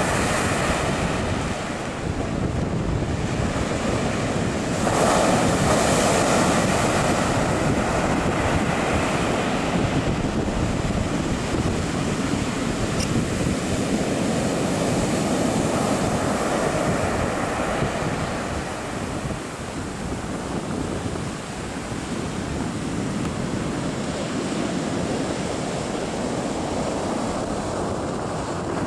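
Ocean surf breaking on the beach and the rocks at the foot of a harbour jetty: a continuous rushing wash that grows louder about five seconds in. Wind buffets the microphone.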